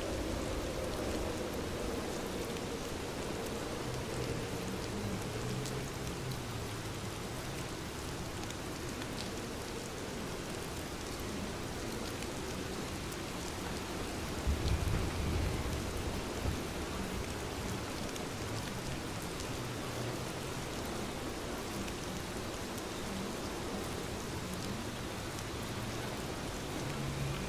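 Steady rain falling on surfaces. A brief low rumble comes about halfway through.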